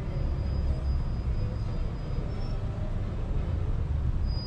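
Low, steady rumble of a car driving slowly, heard from inside its cabin.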